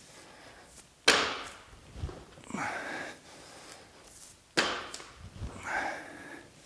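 Two reps of a barbell deadlift, about three and a half seconds apart. Each rep brings a sudden sharp noise, then a short low thud and a heavy breath from the lifter.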